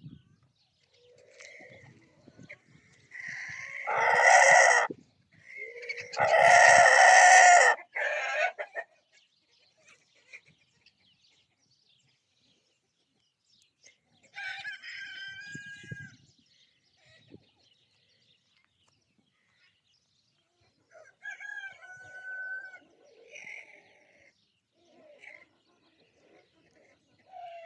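A rooster crowing loudly, two long calls about four and seven seconds in, followed later by softer, scattered clucking calls from the flock.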